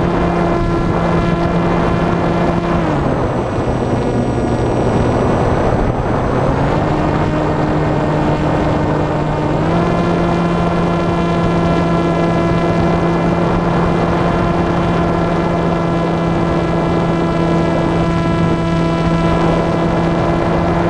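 Motor and propeller of a radio-controlled flying wing running steadily, heard from a camera on board, with wind rushing past. The pitch drops about three seconds in, comes back up a few seconds later and steps slightly higher near the ten-second mark as the throttle is changed.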